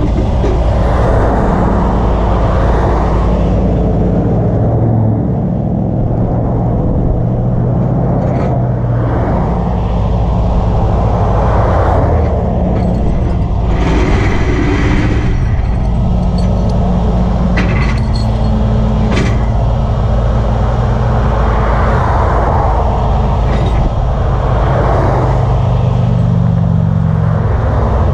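Highway traffic passing close by, its tyre and engine noise swelling and fading every few seconds over a steady low rumble, with a few brief clicks.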